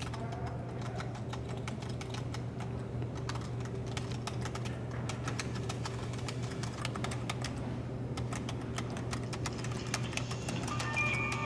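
Typing on a computer keyboard: a quick, irregular patter of key clicks over a steady low hum. Near the end a smartphone ringtone starts playing.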